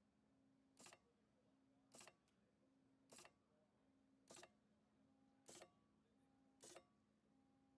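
Robot 500 portioning machine forming heart-shaped portions in a steady cycle: a short, sharp mechanical stroke about every 1.2 seconds, six in all, over a faint steady low hum.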